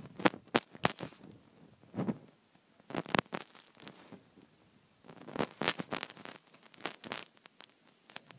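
A plastic pick scraping and clicking inside a phone's charging port to dig out lint, in several short bursts of sharp clicks and scratches with pauses between.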